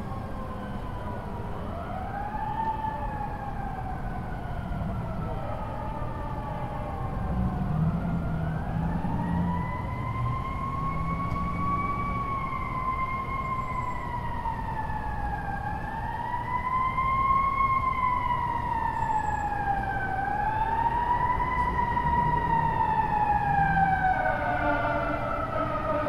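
Fire engine siren wailing, its pitch rising and falling slowly every four to five seconds, over a low engine and road rumble.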